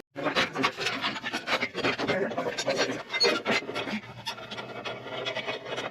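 Steel parts being handled and fitted: irregular clicks, light knocks and scraping, as of a C-clamp and steel pieces being set in place.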